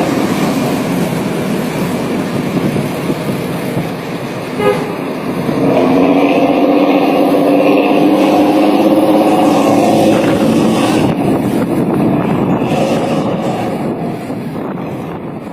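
Bus with a modified 'ngorok' (snoring) exhaust running loud, a deep growling drone with steady tones in it, easing off around the middle and swelling again, then trailing away near the end.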